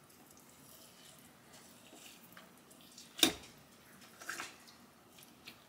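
Two metal forks pulling apart slow-cooked pork loin in a slow cooker's ceramic crock, faint and wet. A sharp clink of a fork against the crock comes about three seconds in, and a few lighter clicks follow a second later.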